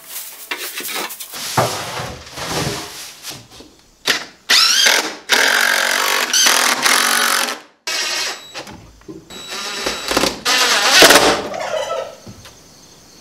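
A turkey gobbling, mixed with a cordless drill that starts and stops abruptly in short runs as it drives screws into a wooden post.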